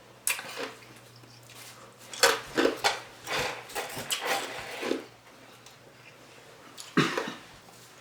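Ice being bitten and crunched close to the microphone, in several separate noisy bursts: one about a quarter second in, a cluster from about two to five seconds, and another around seven seconds.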